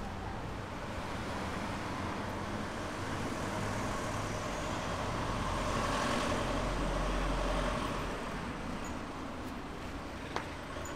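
Street traffic noise with a motor vehicle passing, swelling to its loudest about six seconds in and fading again. A single sharp click comes near the end.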